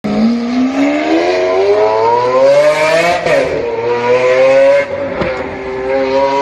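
Lamborghini Aventador V12 fitted with an aftermarket Fi Exhaust system accelerating hard from a standstill. The revs climb steadily, drop sharply at an upshift about three seconds in, climb again, and drop at a second upshift about five seconds in.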